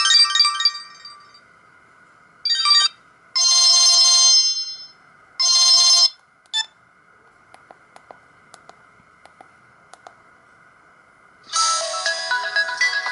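Samsung GT-E2120 mobile phone playing its stock ringtones. One melody fades out in the first second, then a short tune of three bright note clusters sounds between about 2.5 and 6 seconds in. After a quiet pause, a new many-note melody starts about 11.5 seconds in.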